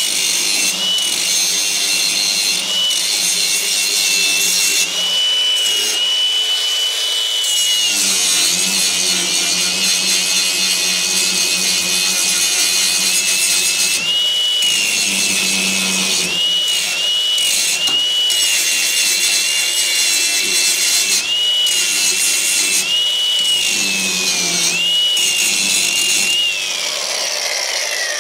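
Angle grinder's disc grinding on steel body parts of a 1961 VW Bus. Its high whine sags in pitch each time the disc bears into the metal and picks back up as it eases off, then winds down near the end.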